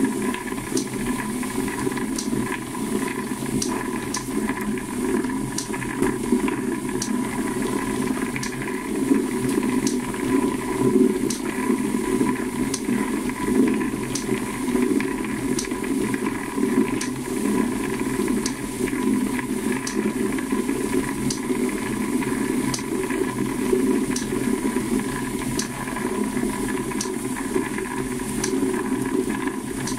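Motorized firework star roller running: the stars tumbling in the spinning drum make a steady rushing rattle over the motor's even hum. A light tick repeats at an even pace.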